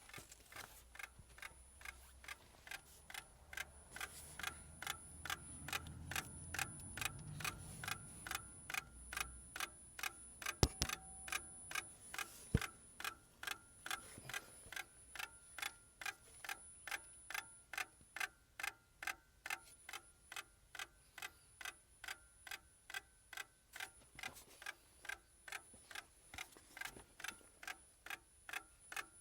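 Steady rapid ticking knock, about three clicks a second, from a cold Lada Priora with the ignition switched on, with two louder single clicks near the middle. It is the knocking the owner hears at ignition-on on this hard-starting car.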